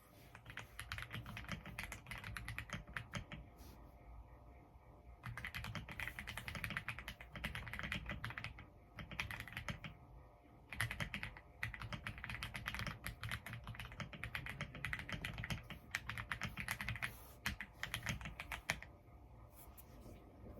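Typing on a gasket-mount EPOMAKER x Aula F99 mechanical keyboard with Graywood V3 switches: rapid key clacks in bursts of several seconds, broken by brief pauses.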